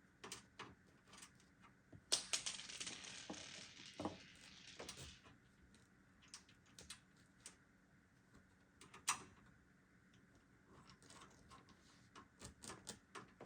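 Faint, scattered clicks and taps of small computer parts and hardware being handled during assembly, with a rustling noise from about two to five seconds in and one sharp click about nine seconds in.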